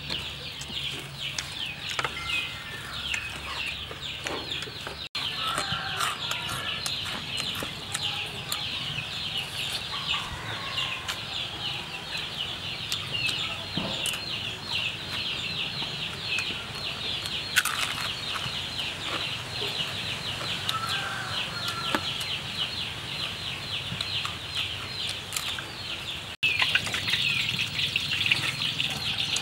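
Chickens in a yard: a dense, steady chorus of high, rapid peeping, with occasional lower hen clucks.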